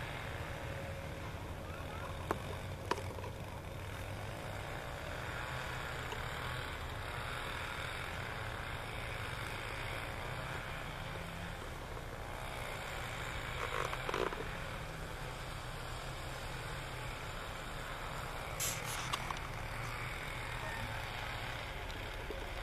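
Steady outdoor background rumble and hiss. There are two sharp clicks a few seconds in and brief louder bursts about 14 and 19 seconds in.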